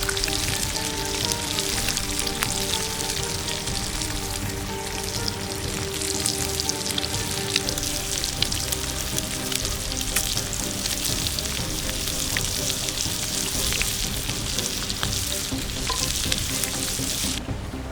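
Food frying over a campfire: a steady crackling sizzle dotted with small pops, which cuts off suddenly near the end.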